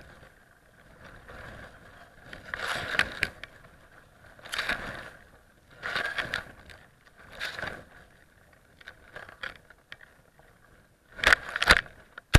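Wind buffeting the microphone of a camera hanging from a flying kite, coming in rough rushes every second or two as the camera swings, the loudest near the end.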